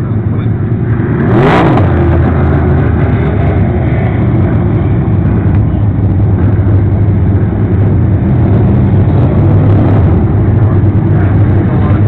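Pro Stock dirt-track race cars running hard around the oval, a loud, steady engine drone. About a second and a half in it swells sharply as a car comes past close.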